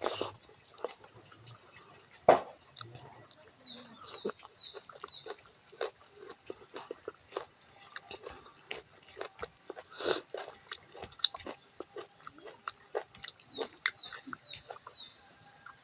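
Close-miked eating sounds of rice mixed with stinging-nettle (sisnu) curry: wet chewing, lip smacking and slurping in irregular bursts, with one sharp loud click about two seconds in.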